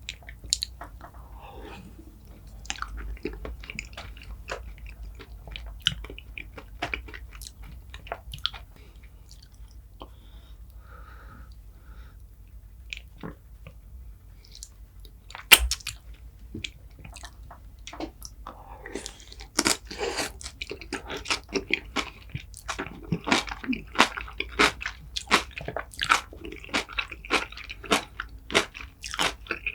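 Close-miked eating sounds: wet chewing and biting with some crunching, growing busier and louder in the second half, and one sharp click about halfway through.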